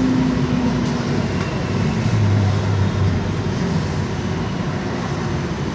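Tram running along the street, heard from inside the car: a steady rolling rumble with a low hum that drops in pitch about two seconds in.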